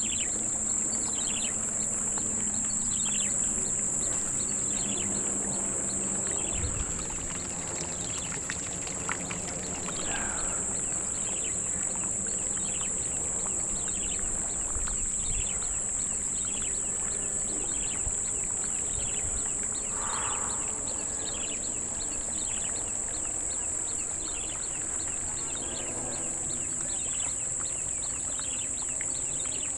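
Steady high-pitched drone of insects, with short falling chirps repeating about once a second over it.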